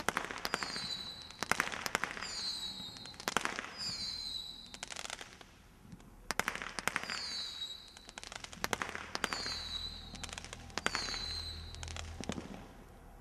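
Brothers Pyrotechnics Air Strike, a 144-shot combination roman candle cake, firing volleys of sharp shots about once a second. Many volleys are followed by short whistles that dip slightly in pitch, and there is crackle among the shots. There is a brief lull partway through, and the firing tails off near the end.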